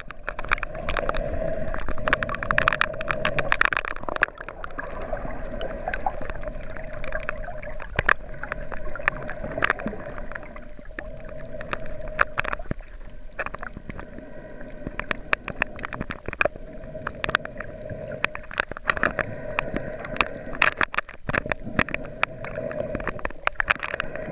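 Underwater sound picked up by a camera submerged over a coral reef: a muffled water wash with a steady hum and many scattered sharp clicks and crackles.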